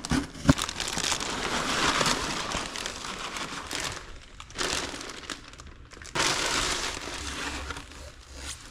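Packaging crinkling and rustling as a box is opened and its contents unwrapped, in several bouts with short pauses.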